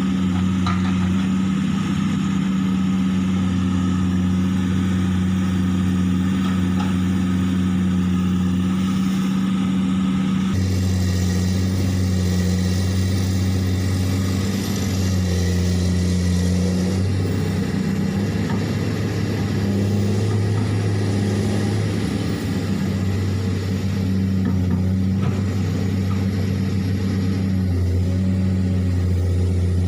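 Komatsu hydraulic excavator's diesel engine running steadily under load, its note shifting about ten seconds in and rising and falling at times as the machine works.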